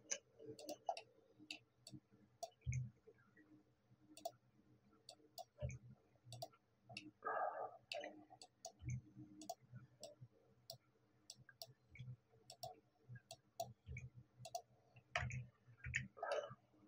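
Quiet, irregular computer mouse clicks and keyboard key presses, scattered singly and in quick pairs, with a few dull thumps and a short soft noise about halfway through.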